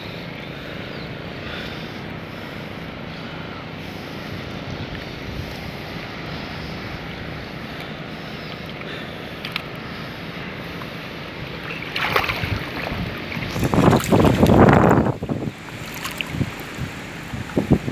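Wind blowing over the microphone above the rippling water of a shallow lake, steady at first, then louder gusts buffeting the microphone about two-thirds of the way through and again near the end.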